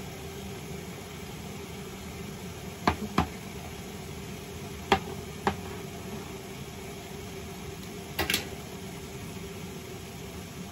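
Several sharp knocks and clinks of a drinking glass being handled and set down on a glass-ceramic hob, in pairs about a second apart, over a steady low hum.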